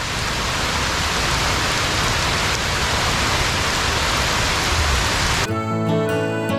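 Heavy rain falling steadily as a dense, even hiss. About five and a half seconds in it cuts off abruptly and acoustic guitar music begins.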